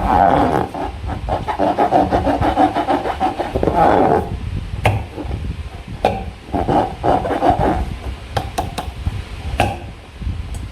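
Slime being squeezed and worked by hand, a dense crackling squish of many small clicks and squelches. It pauses about halfway through, then comes back in shorter bursts, with a few sharp clicks.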